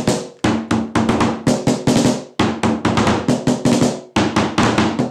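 Snare drums struck with wooden drumsticks in a fast call-and-response pattern: rapid sharp hits in short phrases, with brief breaks about two and a half and four seconds in.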